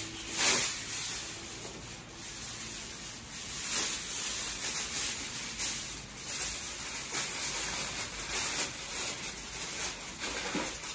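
Sheets of aluminium foil crinkling and rustling in irregular crackles as they are spread and pressed over a roasting tray, loudest just after the start.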